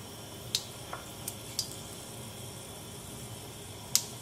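Mustard seeds heating in oil in a stainless steel pan: a faint steady sizzle with a few sharp, scattered pops as the seeds begin to splutter, the sign that the oil is hot enough for tempering.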